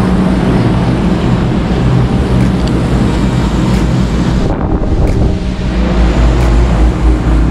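Steady low rumble of a moving vehicle with wind noise on the microphone; the hiss thins out briefly about halfway through.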